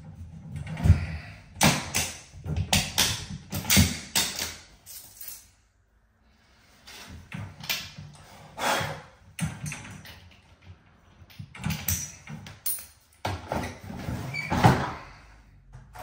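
Irregular knocks, clicks and scrapes of copper pipes and metal fittings being handled and positioned against a wall, with a short silent gap about six seconds in.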